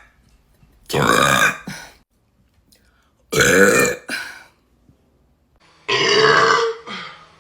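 A woman belching three times in a row: loud burps, each close to a second long, spaced about two to three seconds apart.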